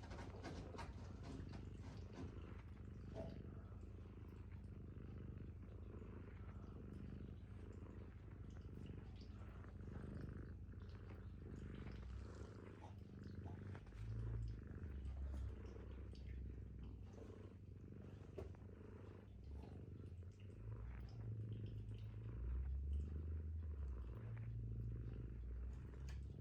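American Shorthair cat purring steadily, close to the microphone, with faint soft rustles throughout. A heavier low rumble comes and goes from about halfway in.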